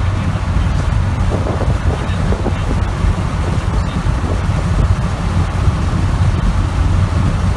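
Steady low rumble of wind buffeting the microphone, with an even hiss above it and no distinct events.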